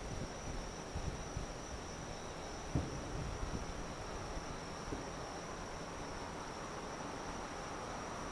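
Steady high chirring of night insects, with a few distant dull booms of fireworks; the loudest boom comes about three seconds in.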